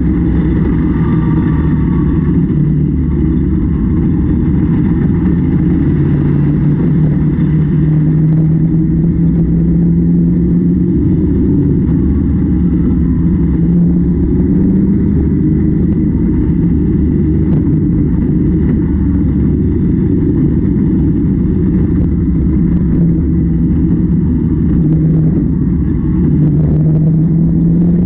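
Engine of a piece of harvest machinery running steadily under load, a constant low drone whose pitch rises slightly near the end.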